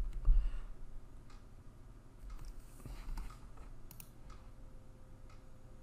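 Scattered light clicks and taps from working the computer on which the slide is being annotated, with a louder low thump about a third of a second in.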